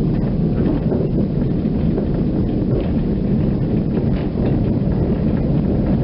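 Metre-gauge tram running along its track, heard from inside the car: a steady low rumble of wheels and running gear, with light clicks and rattles.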